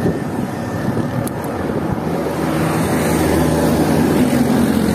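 Motor-vehicle traffic: a steady engine drone over road noise, growing slightly louder from about two seconds in.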